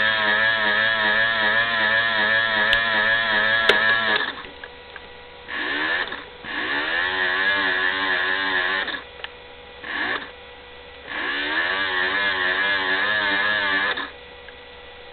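Small electric motor of a toy plastic washing machine driving its drum in the main wash: a steady whine with a regularly wavering pitch. About four seconds in it cuts out, then stops and restarts several times, rising in pitch as it spins back up each time.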